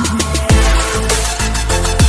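Electronic music with a steady beat; a deep bass comes in about half a second in, its notes sliding down in pitch on each beat.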